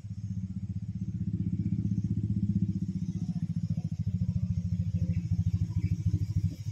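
An engine running with a steady, rapid low throb, growing louder over the first couple of seconds and then holding.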